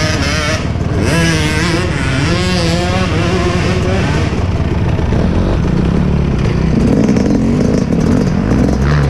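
Dirt bike engine running under the rider at trail speed. Its pitch rises and falls with the throttle over the first few seconds, then settles to a steadier low note.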